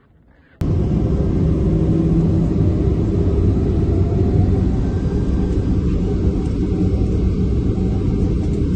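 Jet engines of a Tu-204 cargo airliner running on the ground: a loud, steady roar that starts abruptly about half a second in.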